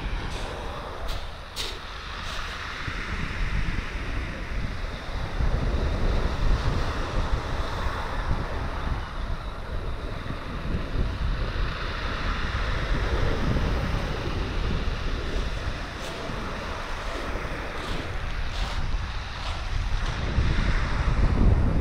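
Wind buffeting the microphone over small waves breaking and washing up a shingle beach, with a few faint crunches of pebbles underfoot near the start.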